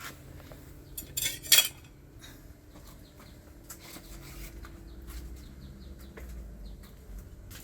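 Two brief clattering knocks of hard objects about a second and a half in, among scattered small clicks, with faint bird chirps.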